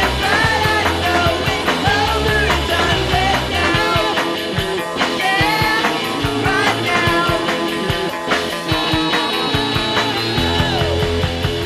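Rock-style intro music, a steady drum beat and bass under a wavering lead melody.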